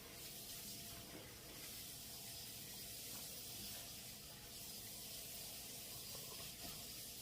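Faint, steady hiss with no distinct sounds standing out.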